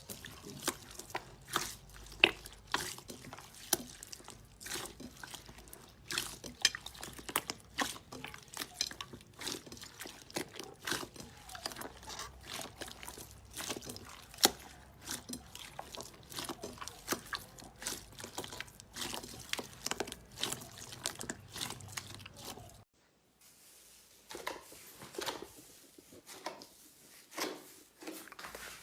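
Slime being squeezed and pressed by hand, making dense, irregular sticky clicks and wet pops. It drops out briefly near the end, and then sparser clicks and pops resume.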